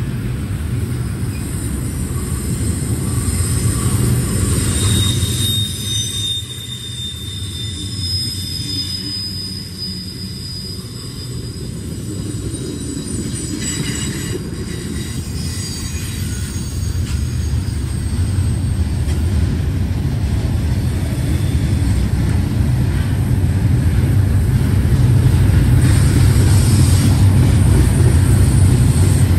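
Double-stack intermodal freight cars rolling past: a steady rumble of steel wheels on rail, with a few brief high-pitched wheel squeals about four to ten seconds in. The rumble grows louder toward the end.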